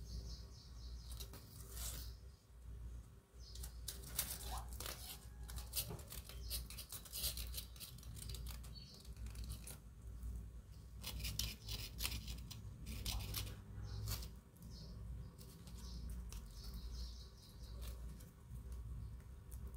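Dry leaf rustling and scraping on the floor, crackling in short irregular bursts as it is waved about and swatted by kittens.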